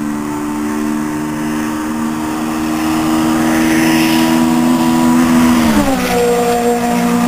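Honda S2000 AP1's F20C four-cylinder engine, with decat pipe and HKS Hi Power exhaust, pulling hard on approach with its note climbing steadily. About six seconds in the car passes and the pitch drops sharply.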